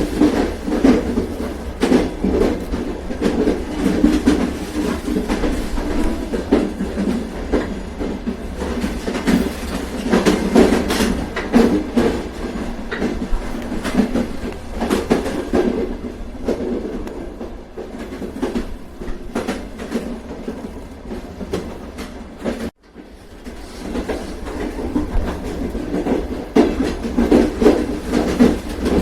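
Train running on the rails: a steady rumble with clickety-clack of the wheels over the track. It grows quieter for a few seconds, cuts out for an instant about three-quarters of the way through, then picks up again.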